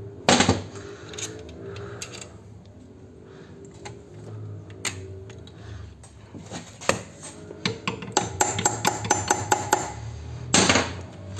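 Metal engine parts and hand tools clinking and knocking while an engine is being taken apart: a few separate sharp clacks, then a quicker run of clicks and a louder knock near the end.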